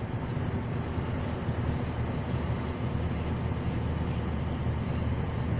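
Heavy truck driving at motorway speed, heard inside the cab: a steady, low drone of engine and road noise.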